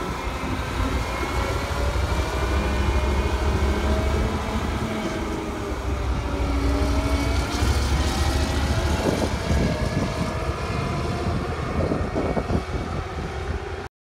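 Claas Lexion 770 combine harvester driving past on the road: a steady diesel engine drone with a deep rumble and a whine whose pitch drifts slowly as it goes by.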